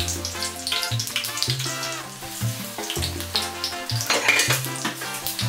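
Akara-coated bread slices sizzling and crackling as they fry in hot oil in a pan, under background music with a steady, repeating bass line.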